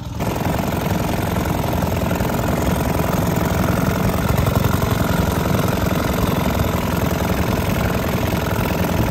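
1925 Caille Pennant 2¾-horsepower opposed-twin outboard motor running steadily under way, pushing a small boat. It jumps louder just after the start, when it is heard close up.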